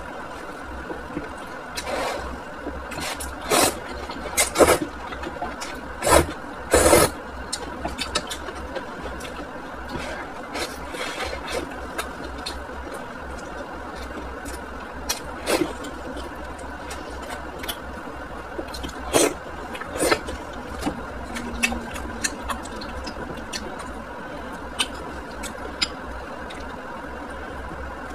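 Eating sounds: hot and sour noodles slurped and food chewed, with a string of short, loud slurps and smacks in the first seven seconds and scattered smaller ones after. A steady hum runs underneath.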